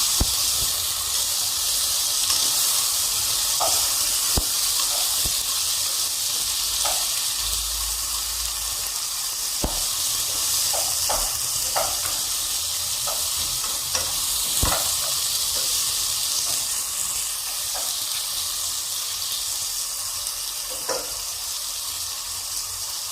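Chicken pieces frying in oil in a pot, a steady sizzle with scattered pops and crackles.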